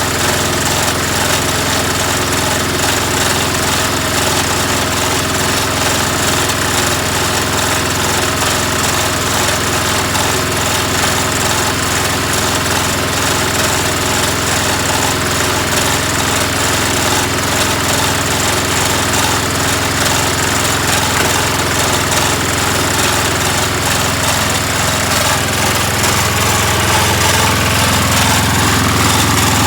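An engine running steadily at idle, getting a little louder in the last few seconds.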